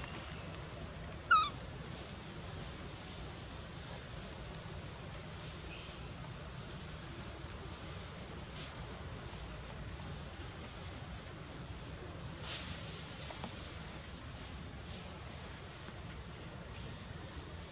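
Steady, high-pitched insect drone. About a second in, a single short, sharp animal squeak cuts in over it.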